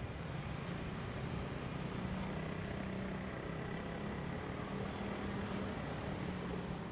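A distant engine drones steadily over wind and background noise.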